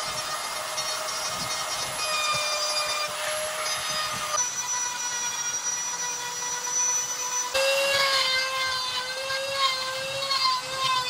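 Cordless rotary tool with a small burr bit running at a steady high whine while grinding into wood. The sound changes abruptly twice, about four and seven and a half seconds in. In the last few seconds the pitch wavers and a rasping sound comes and goes as the bit bites.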